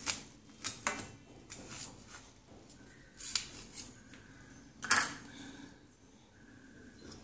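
Kitchen knife cutting through a bread sandwich on a stainless steel plate: a series of short scrapes and clicks of the blade and bread against the metal plate, the loudest about five seconds in.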